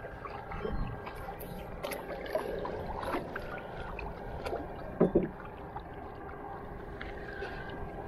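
Paddle strokes in the water beside a small wooden canoe: splashing and dripping, with scattered small clicks and two sharp knocks close together about five seconds in.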